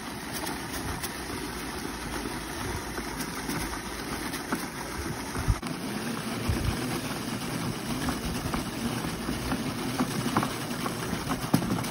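Walk-behind broadcast spreader pushed across a lawn: its wheels and spinner gearing give a steady rattling whir, with a few sharp clicks.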